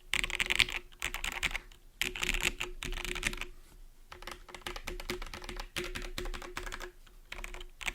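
Linworks Triple A custom mechanical keyboard with lubed Gateron Blizzard tactile switches being typed on in quick bursts of keystrokes, with brief pauses between runs.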